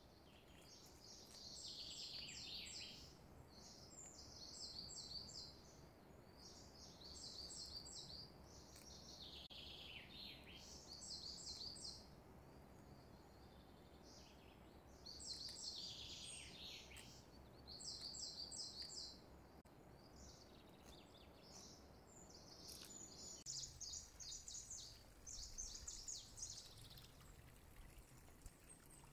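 Faint songbird song: short, high trilling phrases every two to three seconds, some sweeping down in pitch.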